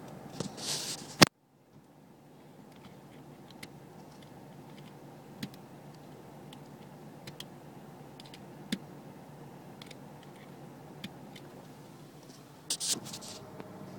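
Steady low hum inside a car whose engine is idling, with light scattered clicks and handling noises. A sharp click about a second in is followed by a brief cut-out of the sound, and a short cluster of clicks and rustling comes near the end.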